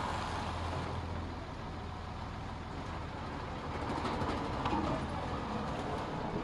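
A bulldozer's diesel engine running steadily with a low hum, with a few faint sharp cracks about four to five seconds in.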